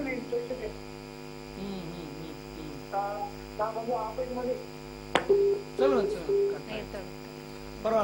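A caller's voice coming through a telephone line, in short phrases, over a steady electrical mains hum. There is one sharp click about five seconds in.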